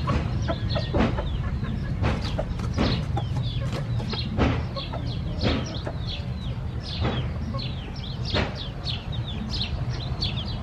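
Chickens clucking among many quick, high, falling chirps, over a steady low hum.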